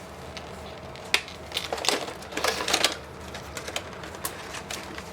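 Hands handling the figure's packaging and accessories: a sharp click about a second in, then a stretch of rustling and clicking, with a few lighter clicks near the end.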